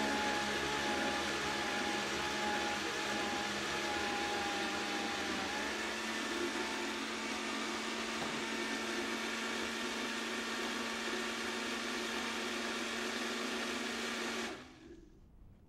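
Vitamix blender motor running at high speed, churning frozen peaches and milk into a thick frozen ice cream. Its tone changes slightly about five seconds in, and the motor switches off abruptly near the end.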